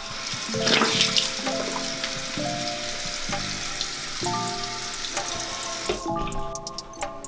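Bathroom sink faucet running, with a splash about a second in as water is cupped onto the face; the running water cuts off about six seconds in. Background music with sustained notes plays over it.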